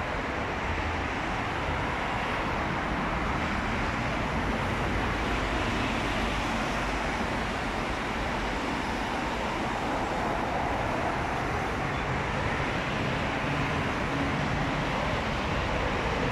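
Steady road traffic noise, a constant rumble and hiss with no single vehicle standing out.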